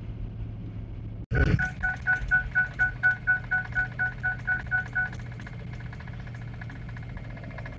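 Tow truck's dashboard warning chime beeping rapidly, about five beeps a second for roughly three and a half seconds, then stopping. A steady low engine drone fills the cab throughout, with a brief cut-out about a second in.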